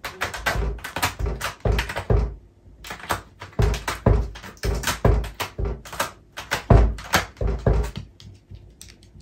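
Cat clawing a tall cylindrical corrugated-cardboard scratching post: quick runs of rasping scratch strokes, each with a dull thud, pausing briefly about two and a half seconds in and stopping about eight seconds in.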